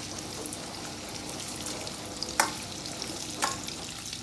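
Boiled potato sticks shallow-frying in a little hot oil in a pan: a steady sizzle with fine crackling. Two sharp taps stand out, about halfway through and again a second later.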